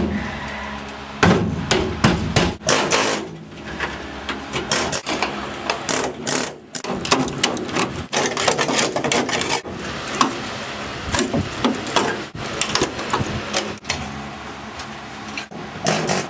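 Hand hammer striking a steel chisel driven into a rusted sheet-metal truck cab floor, a run of irregular sharp metal-on-metal blows. The floor pan is being knocked free of its floor brace.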